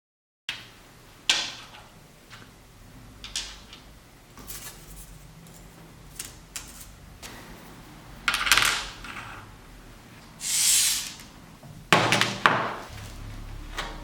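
Small metal parts of an old electric iron being handled on a work surface: a series of sharp clicks and clinks with a few louder knocks, and a short hiss about ten seconds in.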